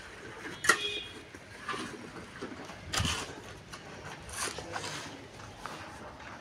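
Bricks knocking and clinking as they are handled and laid for brick soling: a few scattered sharp knocks, the loudest under a second in with a brief ring after it, and another about three seconds in.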